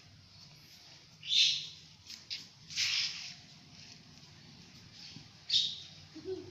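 Quail giving short, high, sharp chirps, four or five of them spread unevenly through the few seconds, over a faint low hum.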